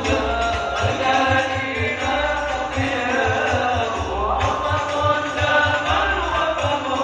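Live sholawat music: voices chanting an Arabic devotional song over a steady low drum beat from a hadrah ensemble.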